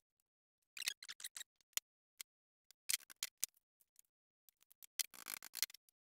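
Vinyl seat upholstery being pulled, rolled and tucked by hand over a seat frame: scattered sharp clicks and crackly rustles, in three short clusters about a second in, around three seconds and around five seconds.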